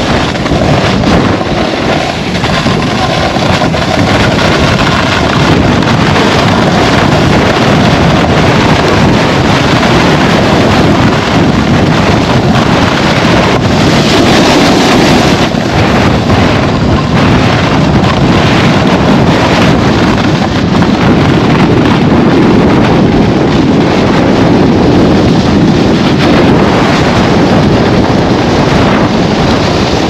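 Loud, steady wind buffeting a head- or chest-mounted camera's microphone while a snowboard slides and carves over packed snow at speed.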